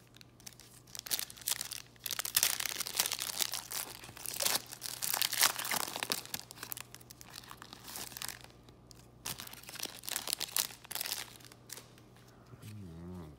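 A foil trading-card pack being torn open and crinkled by gloved hands: a dense crackle of foil starting about a second in, loudest in the first half and dying away near the end.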